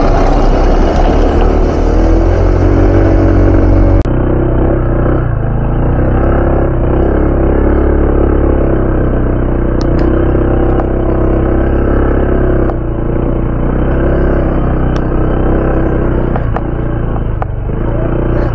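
Honda ADV 160 scooter's single-cylinder engine running at a low, steady speed while riding over a rough dirt and gravel track, with rumble and a few light knocks from the bumps. A high hiss over it cuts off abruptly about four seconds in.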